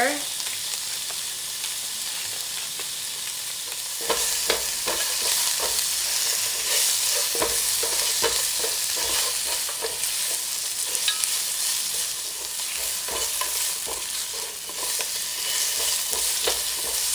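Pork riblets, garlic and shallots sizzling in hot oil in a non-stick pot. From about four seconds in, a cooking utensil knocks and scrapes against the pot as the meat is stirred and turned.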